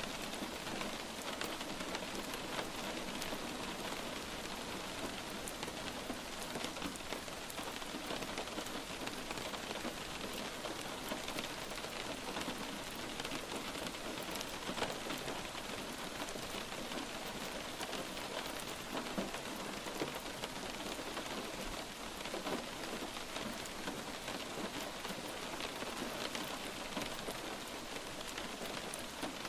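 Steady light rain falling on a surface, an even hiss dotted with many small drop ticks.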